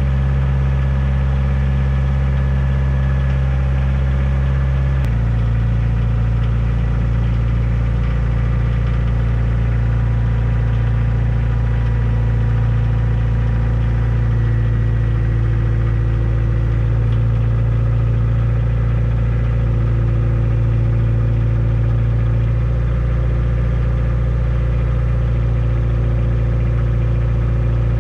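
Kioti compact tractor's diesel engine running steadily, its note changing abruptly about five seconds in.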